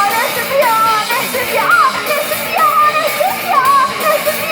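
Live band music, with a voice singing a wavering melody over the full band.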